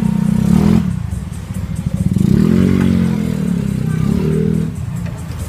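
A motor vehicle engine running and revving, its pitch rising and falling twice.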